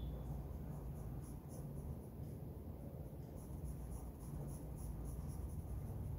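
Pencil scratching on paper in short, quick shading strokes, coming about four or five a second in the second half, over a steady low hum.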